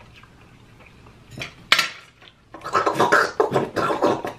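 Dishes and cutlery clattering on a table: one sharp clink about a second and a half in, then a run of rattling and clinking through the last second and a half.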